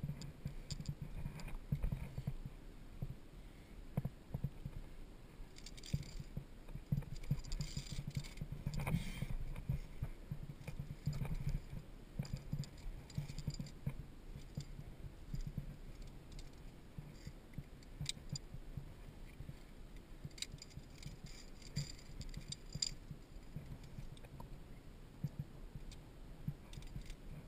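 Metal via ferrata gear, carabiners and lanyard clips, jangling and clicking against the steel safety cable as the climber moves up, in two bouts about six seconds in and again around twenty seconds. Under it run the steady low knocks and rustle of the climber's body and hands on the rock and cable.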